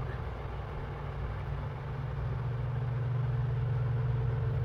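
Steady low mechanical hum, unchanging throughout, with no distinct sounds standing out.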